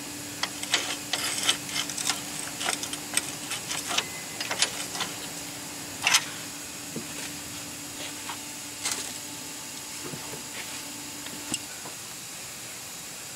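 Irregular metallic clicks and clinks of the leaf spring's frame-mount bolt and mount being worked loose with hands and tools, thick in the first five seconds, with one louder clank about six seconds in and a few scattered clicks after. A faint steady hum runs underneath and stops near the end.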